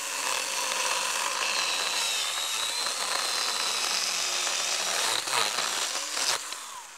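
Stihl GTA 26 battery mini chainsaw running and cutting through a thin dry branch: a steady high motor whine with the chain rasping through the wood, dying away near the end.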